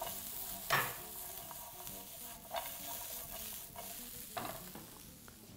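Stir-fry vegetables sizzling in a very hot non-stick frying pan as they are tossed and stirred, with a few sharp scraping or tossing sounds. The sizzle gets quieter toward the end.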